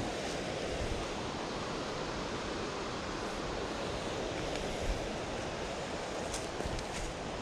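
Steady rushing of a mountain stream's flowing water, an even hiss that does not change.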